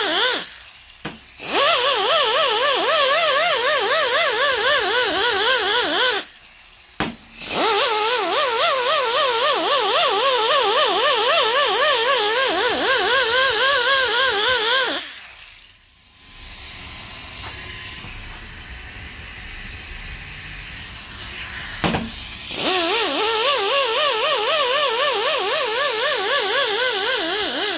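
Air die grinder with an abrasive stone whining and hissing as it sands the band surface of a 4L60-E reverse/low-reverse drum, its pitch wavering with the load. The grinding breaks off briefly about a second in and again around six seconds, stops for several seconds about halfway through, then starts again and runs until near the end. It is taking the glazing off the drum so the band will not slip.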